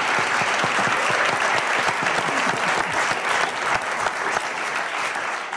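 Studio audience applauding, tapering off near the end.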